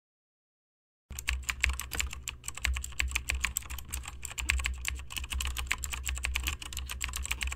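Rapid, irregular clatter of typing on a computer keyboard, starting about a second in, over a low steady hum.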